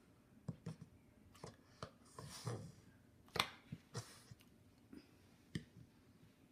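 English bulldog puppies hiccuping: about a dozen short, sharp, clicky hics at irregular intervals, with one longer, noisier sound midway.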